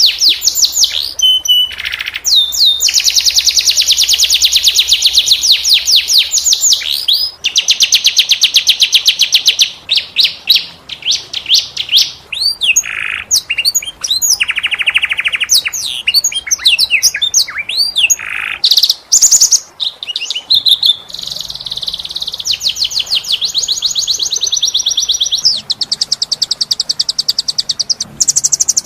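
Domestic canary singing continuously: long, high-pitched rolling trills of very rapid repeated notes, linked by short swooping phrases and brief pauses.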